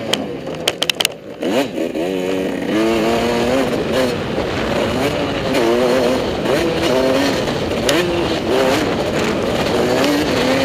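Motocross bike engine heard from on board, revving up and dropping back over and over as the throttle is opened and shut and the rider shifts gears. In the first second or so the throttle is chopped and there are a few sharp clicks before the revs climb again.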